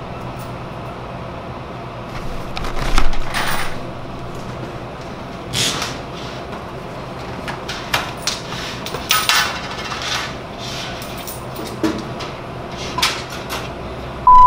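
Stocking an open snack vending machine: scattered knocks, clatters and rustles as snack packages and the machine's metal parts are handled, over a low steady hum. A short beep sounds near the end.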